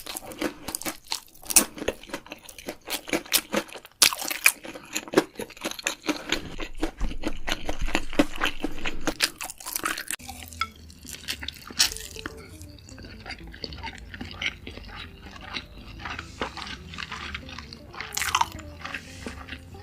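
Close-miked eating: loud crunching and chewing of crisp food for about the first ten seconds, then softer, wetter chewing with faint background music coming in.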